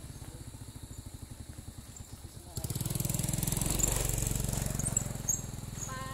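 A vehicle engine running close by, with a steady low pulsing that turns suddenly louder about two and a half seconds in, joined by a hiss.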